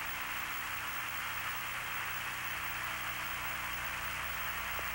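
Steady hiss with a low mains hum and nothing else: background noise of an open radio audio line.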